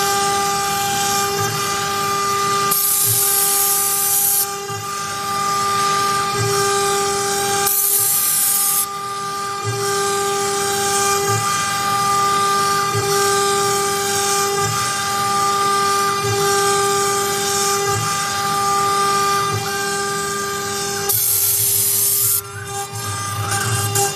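CNC router spindle running with a steady high-pitched whine while its small end mill cuts a pocket around raised letters in a wood board. Three short bursts of louder high hiss come as the cutter bites: a few seconds in, about eight seconds in, and near the end.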